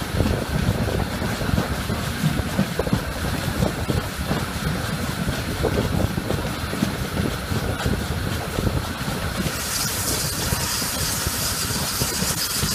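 Steam-hauled train behind a GWR Small Prairie 2-6-2 tank locomotive running along the line: steady rumble and irregular knocking of the wheels on the rails, buffeted by wind on the microphone. A steady high hiss joins about nine and a half seconds in.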